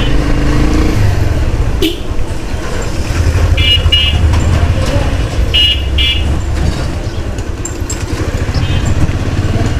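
Motorcycle riding through road traffic, its engine and the ride making a steady low rumble. A high-pitched vehicle horn gives a double beep a few seconds in, another double beep about two seconds later, and a fainter beep near the end.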